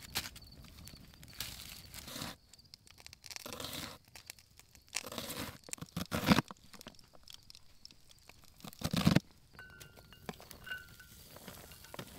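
A kitchen knife crunching through an onion on a plastic cutting board, in irregular separate crunches and knocks, the loudest about halfway and about three-quarters of the way in.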